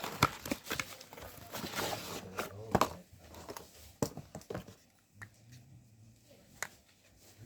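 Packaging being handled and torn open: crinkling and tearing with clicks and knocks, busiest in the first three seconds, then a few scattered taps.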